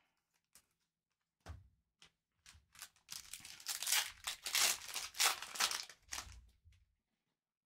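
A foil trading-card pack wrapper being torn open and crinkled. A few scattered crackles come first, then about three seconds of dense ripping and crinkling that stops about a second before the end.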